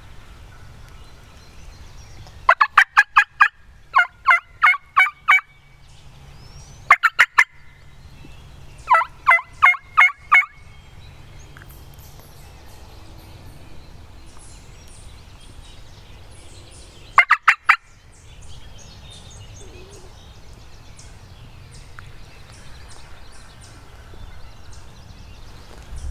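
Hand-worked turkey call sounded close by, imitating a turkey: five loud bursts of rapid, sharp notes, about six a second, with the last short burst after a long pause. It is calling to turkeys to get them to answer and come in.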